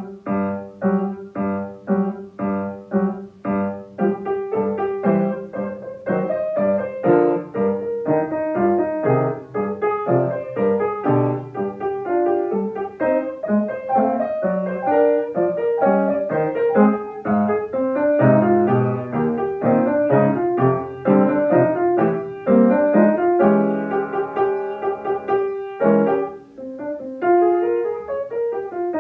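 Acoustic upright piano played solo, a Western classical piece. It starts with evenly repeated chords about twice a second, then moves into flowing runs of quick notes, with a brief break about 26 seconds in.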